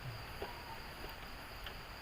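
Insects chirring steadily at a high pitch in the forest, with a few faint ticks.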